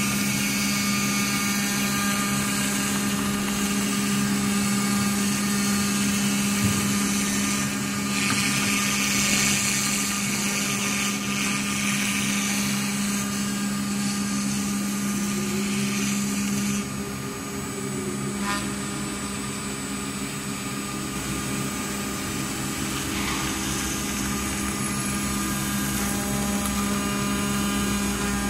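Water-cooled CNC router spindle milling an aluminium sheet, running steadily with a pitched hum over the noise of the cutter. The hum drops out a little past the middle and comes back near the end.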